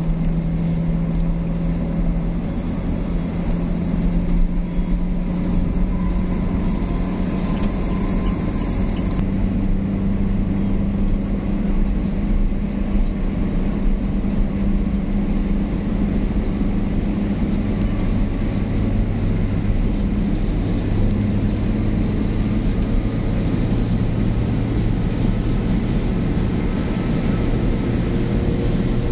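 Car cabin noise at steady highway cruising speed: a continuous low engine drone over an even tyre-and-road rumble.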